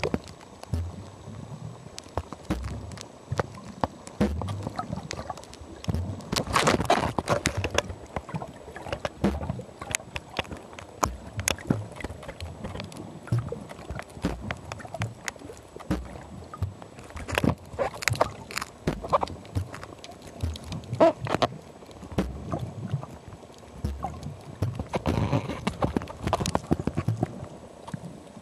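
Underwater sound, probably from a scuba dive: a constant irregular crackling and clicking, with louder bursts of bubbling about every eight to ten seconds, like a diver exhaling through a regulator.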